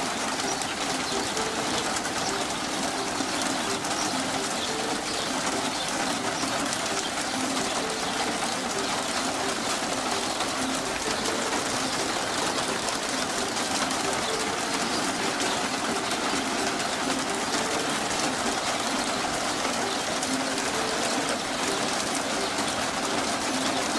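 Steady hiss of rain and small hail falling on the yard, with a bird cooing in short low notes repeated at intervals.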